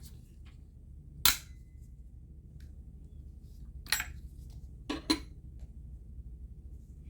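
Sharp knocks and clicks of small metal parts and tools handled while taking a microphone apart. The loudest knock comes about a second in, with a brief ring after it; another follows near four seconds, then a quick double knock around five seconds.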